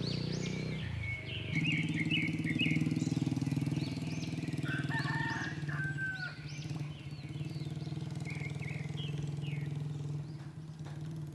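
Small birds chirping in quick, repeated rising-and-falling notes over the steady hum of an idling motorcycle engine.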